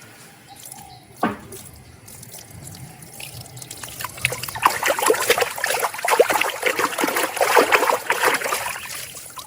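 Water splashing and trickling as a muddy plastic toy is rinsed and scrubbed clean, getting louder and busier from about halfway. A single sharp clack about a second in.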